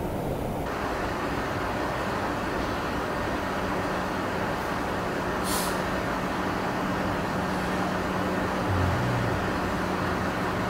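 Steady background noise, a continuous rush heaviest in the low and middle range, with a faint steady hum joining a few seconds in and a brief soft hiss about five and a half seconds in.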